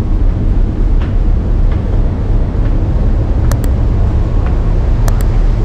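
Loud, steady low rumble of a passenger ship heard on board, with a few sharp clicks in the second half.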